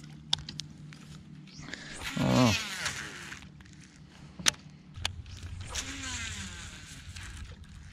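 Fishing tackle being handled, with a few sharp clicks from the rod and reel. There are whirring sweeps that fall in pitch, a loud one about two seconds in and a fainter one near six seconds, as the baitcasting reel's spool spins out line on a cast.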